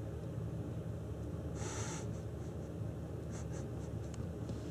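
A cat sniffing and rubbing its face against a wall clock: a short scratchy rustle before the middle and a few soft, irregular clicks later, over a steady low hum.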